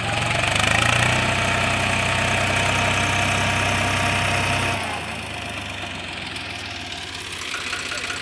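Swaraj 834 XM tractor's three-cylinder diesel engine revving up and running hard under load, straining to pull a fully loaded sand trolley through sand. About five seconds in it drops back to a lower, quieter run.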